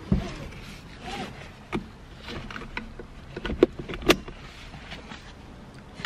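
A manual seatbelt being tried out in a car seat: webbing rustling and sliding through the retractor, with several sharp clicks and clunks from the belt hardware; the loudest two come in the middle.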